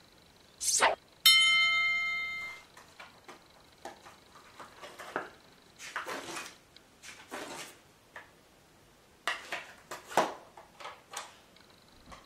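Handy Dandy Notebook prop replica playing its sound effects: a quick swish and then a bright ringing chime that dies away over about a second. Paper and plastic handling rustles and clicks follow, with another swish near the end.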